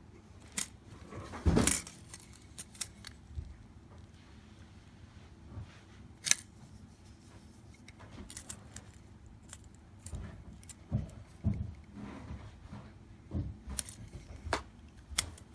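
Handling noise from a small plastic-and-metal car escape hammer: scattered clicks and knocks, the loudest a knock about a second and a half in and a sharp click about six seconds in, with more knocks in the last few seconds.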